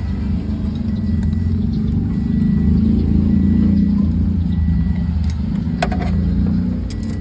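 Toyota HiAce turbodiesel engine running at idle, a steady low rumble that swells slightly in the middle. The owner traces the engine noise to the alternator.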